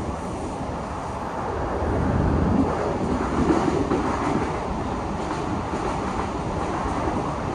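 MBTA Blue Line subway car running on its tracks, heard from inside the car: a steady wheel-on-rail rumble with clickety-clack. From about two seconds in it swells as another Blue Line train passes close by on the adjacent track, then eases back.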